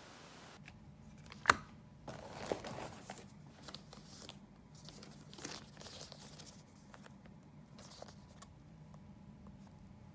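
Packaging and product pouches rustling and crinkling in the hands, with a sharp click about a second and a half in and a softer one a second later.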